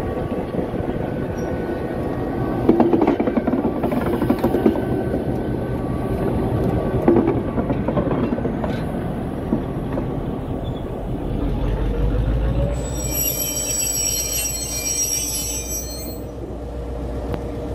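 General Motors 141 Class diesel locomotive No. 146, with its two-stroke EMD engine running, passing close by hauling wagons, its wheels knocking over rail joints. About two-thirds of the way through, a deep engine throb comes in with a rising engine note, followed by a few seconds of high-pitched wheel squeal.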